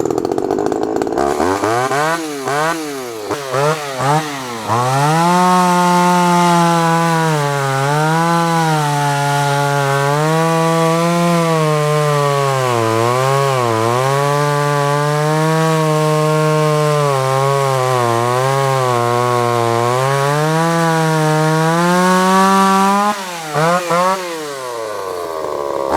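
Tanaka ECS-3500 two-stroke chainsaw running, revved in a few quick blips at first and then held at high revs for a long stretch with the pitch wavering and dipping. Near the end it drops back and is blipped up and down again a couple of times.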